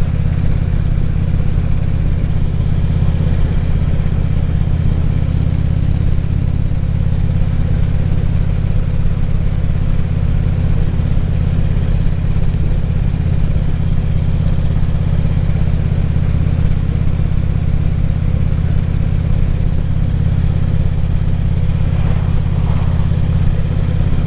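2014 Harley-Davidson Ultra Classic Limited's V-twin engine running steadily as the motorcycle cruises at an even speed, heard from the rider's helmet.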